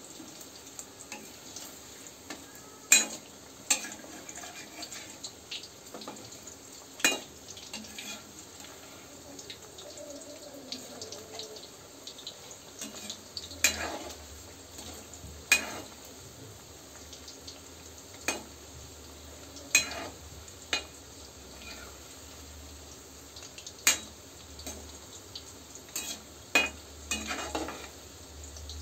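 Battered chicken pakoras sizzling in hot oil in a steel kadai, with a metal spatula clinking and scraping against the pan every few seconds as the pieces are turned over.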